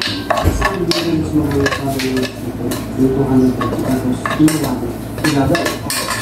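Metal spoon scraping and knocking against a nonstick frying pan as fried rice is stirred and scooped out onto a plate, in a string of irregular clinks and scrapes.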